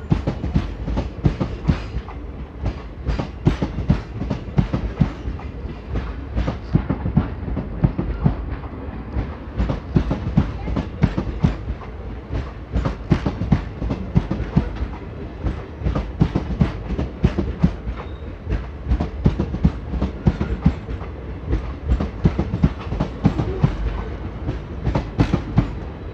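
Passenger coaches rolling past close by at low speed, their wheels clicking and knocking over the rail joints in a continuous clatter over a steady low rumble.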